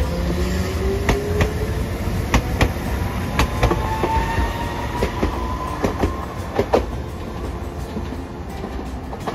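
Hiroden 3900-series articulated tram pulling away. Its motor whine rises in pitch as it gathers speed, over a low rumble, while its wheels clack over rail joints in repeated close pairs. The clacking stops about three-quarters of the way through.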